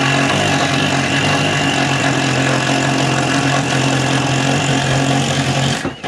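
Cordless drill running at a steady speed as it bores into the wall, for about six seconds, stopping shortly before the end.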